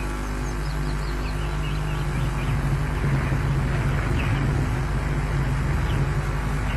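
Wind rushing on an outdoor nest-webcam microphone, growing stronger about halfway through, over a steady low hum, with a few faint, short, high bird chirps.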